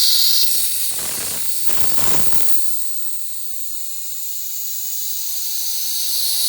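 Compressed air hissing out of a Kobalt 20-gallon oil-free air compressor's tank drain valve as it is opened, venting pressure already left in the new tank. The hiss is rougher and fuller for the first couple of seconds, then settles into a thinner, steady high hiss that swells again near the end.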